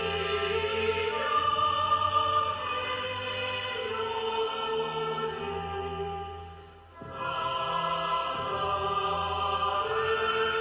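Music with a choir singing long held notes. It fades briefly about seven seconds in and swells back up.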